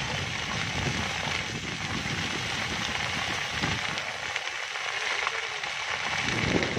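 A field of tall dry crop plants on fire, crackling steadily with many small pops over a constant hiss of burning.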